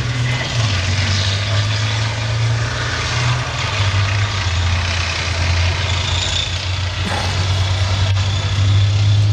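Heavy military vehicle's engine running, its low note stepping down in pitch a few seconds in and rising slightly near the end, with wind noise on the microphone.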